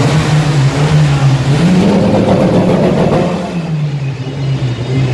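Mitsubishi Lancer Evolution's turbocharged four-cylinder engine heard through its exhaust, idling, then revved once about one and a half seconds in and dropping back to idle about two seconds later.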